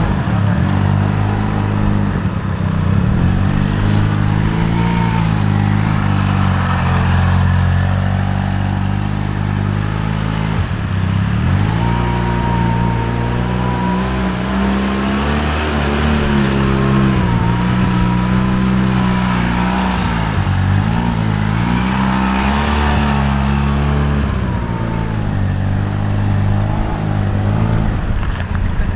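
Benelli adventure motorcycle engine running at low revs as the bike is ridden slowly through a cone course, the throttle opening and easing off repeatedly, with a few brief drops in revs.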